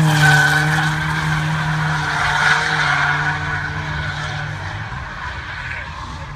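Drift car's engine held at steady high revs while its tyres squeal and skid as it slides sideways, loudest at the start and gradually fading as the car moves away.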